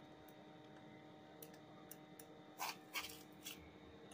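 Faint small metal clicks and scrapes of a hand tool against a motorcycle engine's timing sprocket and head, a few light ticks at first, then several louder scrapes past the halfway point.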